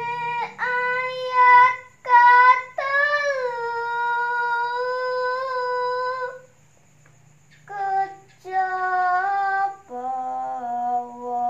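A woman sings Javanese tembang macapat solo, with no accompaniment. She holds long notes that slide between pitches, with one note held for about three seconds. She pauses briefly past the middle, then goes on in shorter phrases.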